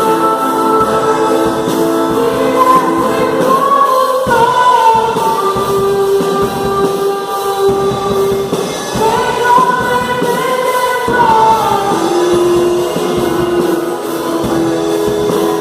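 Choir singing a Christian gospel song in long, held notes over music with a steady beat.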